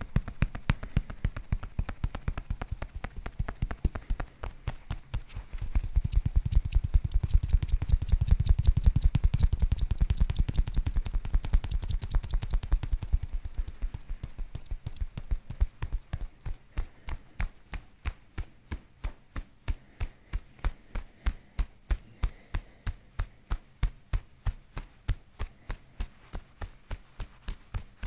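Hands tapping and patting rhythmically on a patient's bare neck and back during manual soft-tissue work: a steady run of light, sharp taps, quicker and fuller in the first half and settling to about three a second in the second half.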